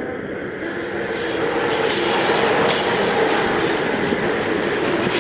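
Model electric train with freight wagons running along its track close by, its wheels rumbling and clicking unevenly over the rails. It grows louder over the first two seconds as it approaches, then runs on steadily.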